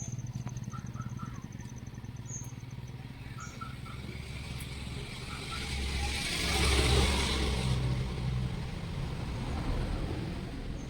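A motor vehicle engine running with a steady low hum. It grows louder to a peak about seven seconds in, then eases off, like a vehicle passing close by.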